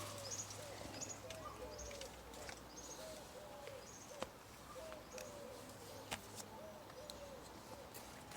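Faint bird calls: a short, arching low note repeated about twice a second, with fainter high chirps between. Two soft clicks sound partway through.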